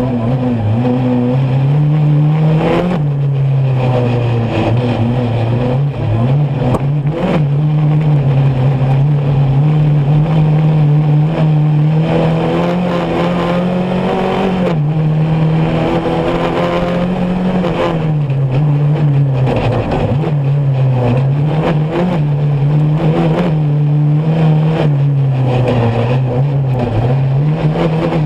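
Off-road rally buggy's engine heard from inside the cockpit, driven hard on a dirt stage. The engine note climbs and drops again and again with throttle and gear changes, with a few sharp knocks.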